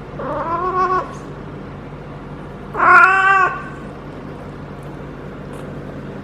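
Female cat in heat caterwauling: two drawn-out yowls, the second, about three seconds in, louder than the first. This is her estrus call during her first heat cycle.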